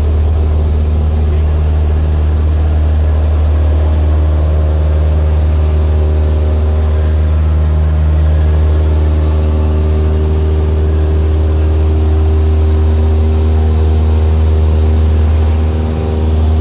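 Cessna 172 Skyhawk's engine and two-blade propeller running steadily at full throttle for the takeoff roll, heard from inside the cabin as a loud, even drone, with a brief dip in level near the end.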